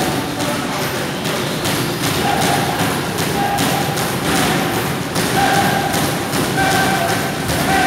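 Boxing sparring: gloved punches landing and feet thudding and shuffling on the ring canvas, a busy run of irregular thumps, with short shouted calls mixed in.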